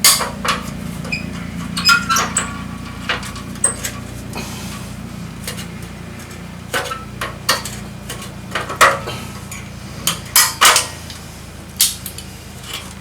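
Metal clanks and clinks as a steel seat spring is stretched and hooked into a truck seat's metal frame: a string of irregular sharp knocks, some with a short ringing ping, with a lull about five seconds in.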